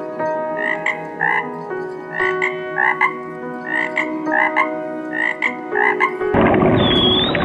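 Frog croaking: short calls repeated, often in quick pairs, over steady held background tones. About six seconds in, a louder rushing noise with a brief arching whistle takes over.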